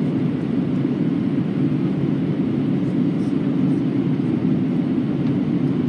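Steady cabin noise of a jet airliner in flight, heard inside the cabin: an even low rumble of engines and airflow with no change in level.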